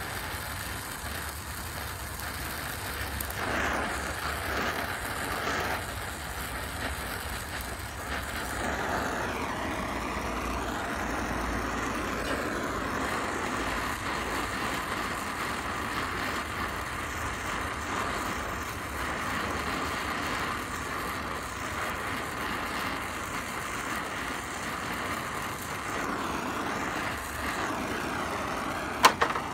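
Gas brazing torch flame hissing steadily while a flux-coated brazing rod is melted onto a brass hydraulic-line fitting, with one sharp pop near the end.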